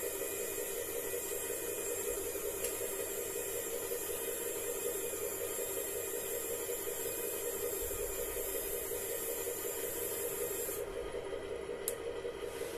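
Steady mechanical hum with a hiss over it, most likely the model tow truck's boom drive or pump running. The high hiss drops away about eleven seconds in, and a single short click follows.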